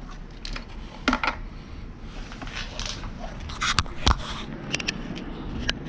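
Scattered sharp plastic clicks and knocks as a 2004–2008 Acura TSX taillight assembly is worked loose from its clips and pulled out of the body. The loudest knock comes about four seconds in.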